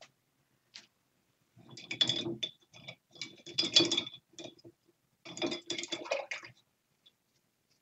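Three bursts of rapid mechanical clicking, like a ratchet being worked, each about a second long with short pauses between.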